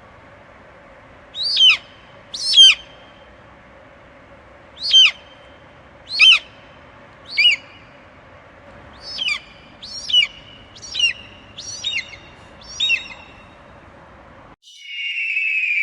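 An eagle calling: ten short, high, downward-slurred cries over faint steady background noise. There is a pair early, three spaced ones, then a quicker run of five. Near the end the sound cuts abruptly to a different, steady rasping sound.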